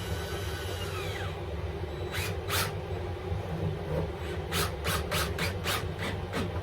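A cordless drill's motor whines up and back down, then a run of about eight short scraping strokes on wood.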